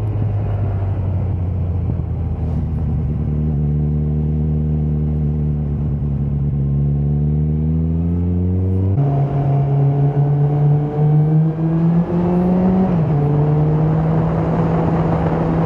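Suzuki GSX650F's inline-four engine under way, its note rising slowly as the bike pulls through a gear, over a steady rush of wind. About nine seconds in, the pitch drops suddenly at an upshift, and the engine then holds an even note.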